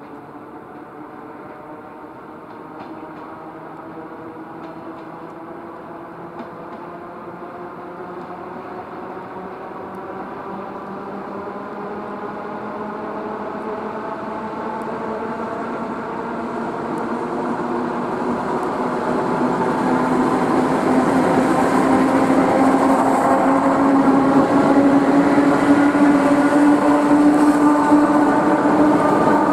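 ER2R electric multiple unit approaching and running past, its traction motors giving a whine of several tones that rises slowly in pitch as the train grows steadily louder, loudest over the last third as the cars pass close by.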